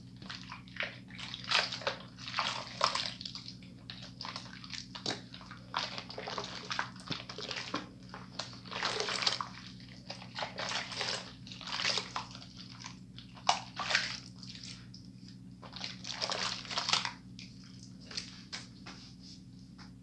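Hands swishing and rubbing in a sink basin full of soapy water while lathering, in short irregular sloshes and splashes about every second, over a steady low hum. The sloshing stops near the end.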